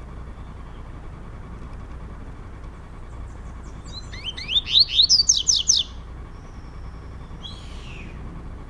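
Male double-collared seedeater (coleiro) singing a fast phrase of repeated high, downward-sweeping notes for about two seconds in the middle, then a single short note near the end. It is counter-singing against a rival male.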